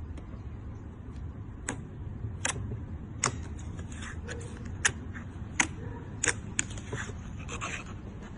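Slime being squeezed and pressed by hand, giving sharp clicking pops about once a second over a low background hiss.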